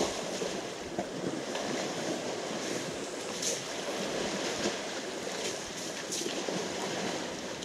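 Water splashing and sloshing as a herd of African elephants wade and drink in shallow water, with a few brief sharper splashes.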